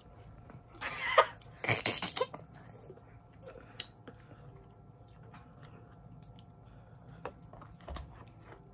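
Someone chewing and crunching sour candy close to the microphone, with two loud crunching spells about a second and two seconds in, then scattered small clicks.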